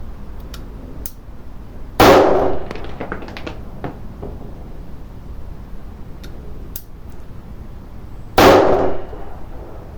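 Two shots from a Colt Detective Special .38 Special snub-nosed revolver, about six seconds apart, each with a short ringing echo. Faint small clicks and knocks are heard between them.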